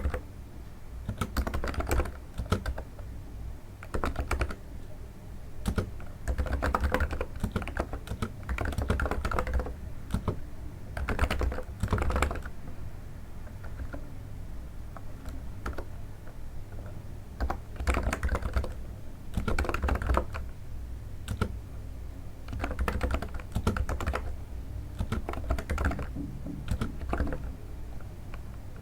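Typing on a NiZ electro-capacitive keyboard, with flurries of keystrokes broken by brief pauses. The keystrokes are soft and dull, likened to the sound of stepping on snow.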